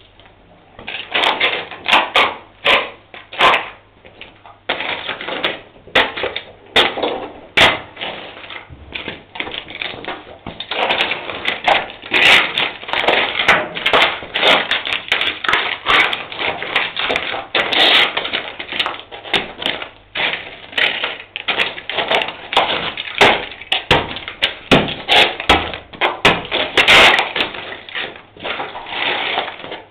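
Plastic objects being stamped on and crushed underfoot on a concrete floor: a dense, irregular run of cracks and crunches as shoes break and grind the pieces, sparser in the first few seconds and nearly continuous after about ten seconds.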